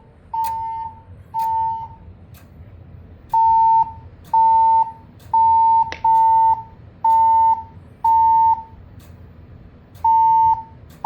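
Fire alarm evacuation tone from a Siemens Desigo Modular XLS-V voice evacuation system: steady mid-pitched beeps about half a second long and a second apart, in groups of three with longer gaps between, the temporal-three evacuation pattern. A sharp click sounds about six seconds in.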